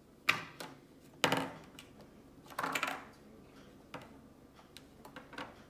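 Small plastic slime tubs being handled and set down on a hard tabletop: two sharp knocks about a quarter second and a second in, a longer clatter around two and a half seconds in, and a lighter knock near four seconds.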